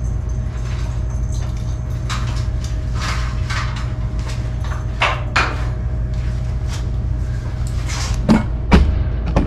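Light clinks and scrapes of hands and tools working at wiring and metal parts on a car chassis, over a steady low hum. Two sharper knocks come near the end.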